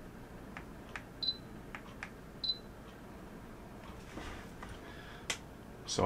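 Two short, high electronic beeps from a Faraday space heater, about a second apart, acknowledging presses on its remote control, with a few faint clicks around them.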